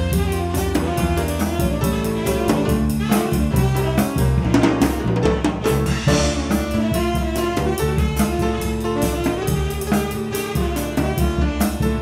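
Live jazz-funk band playing: saxophone lead over a steady drum-kit beat, with bass and piano.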